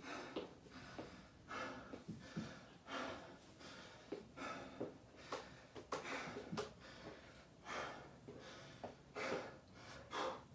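A man breathing hard, with audible breaths in and out about once a second: he is out of breath between sets of exercise.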